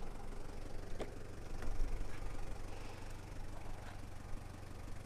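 1996 Toyota Hiace's 3.0-litre turbo-diesel engine idling steadily. A sharp click about a second in as the driver's door is opened.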